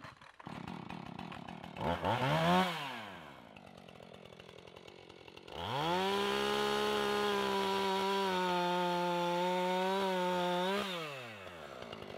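Two-stroke chainsaw idling, blipped once about two seconds in, then revved up to a high steady pitch about six seconds in and held there for about five seconds before dropping back to idle.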